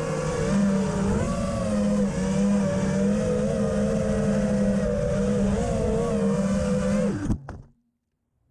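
FPV quadcopter's brushless motors and propellers whining steadily, the pitch wavering up and down with throttle. Near the end the whine drops sharply in pitch and cuts off as the quad comes down and the motors stop.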